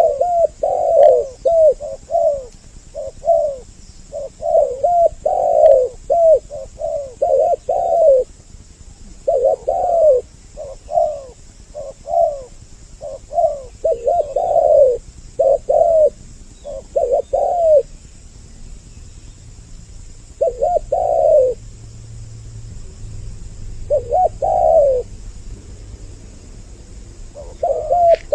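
Spotted doves cooing, two birds' calls overlapping in a quick run of repeated coo phrases. The phrases thin out to a few spaced calls in the later part, then crowd together again near the end.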